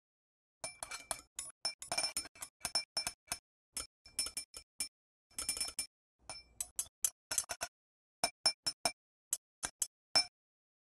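Metal palette knife clinking and scraping against a small glass bowl while mixing acrylic paint. There is a quick, irregular run of sharp, ringing clinks, several a second. They start about a second in and stop shortly before the end.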